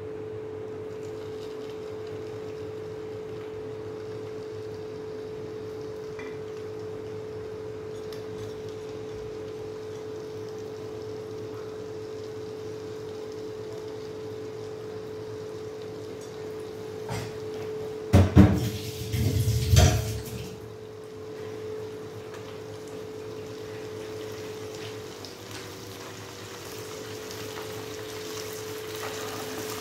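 Bata fish frying in butter and a little refined oil in a pan, a soft steady sizzle over a steady hum. About two-thirds of the way through comes a short burst of loud knocks and clatter of dishes.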